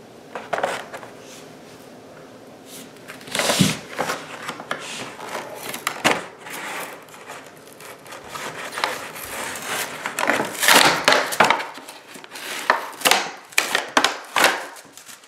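Clear plastic toy packaging crinkling and crackling in irregular bursts as it is handled and pulled open.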